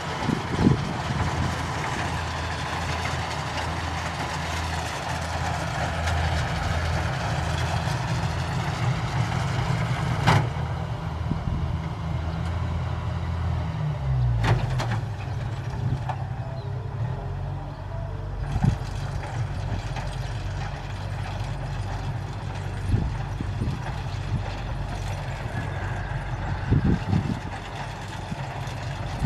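Kubota combine rice harvester's diesel engine running steadily. About fourteen seconds in its note shifts lower, with a sharp knock just before ten seconds and another around fourteen.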